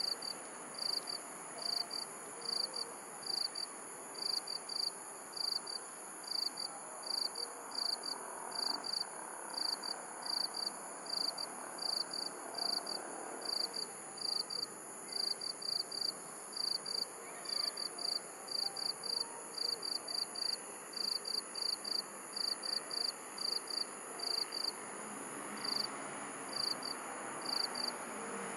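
Crickets chirping: short high chirps, often in pairs, about two a second, over a faint steady background hiss.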